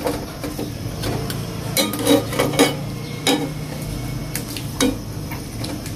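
Metal slotted spatula stirring pork pieces in sauce in a nonstick pan, with irregular clinks and scrapes against the pan, a quick cluster of them about two seconds in.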